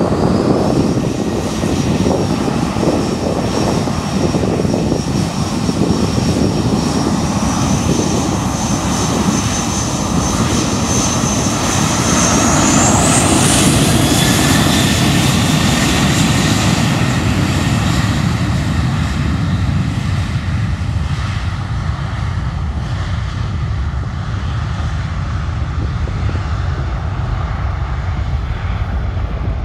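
Twin jet engines of a Boeing 737 running loud and steady, with a high whine that climbs sharply about twelve seconds in as the engines spool up for takeoff. The rumble then slowly fades as the jet rolls away down the runway.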